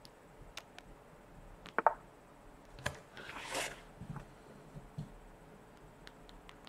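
Small sharp clicks and taps at a computer desk, the loudest a quick pair about two seconds in and another about three seconds in, followed by a short hiss-like rustle lasting under a second, then a few soft thumps.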